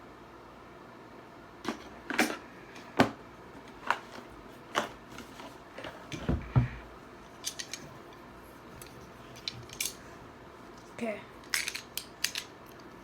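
A product box being opened with a knife: scattered clicks, taps and knocks of the blade and packaging being handled, with one duller thud midway.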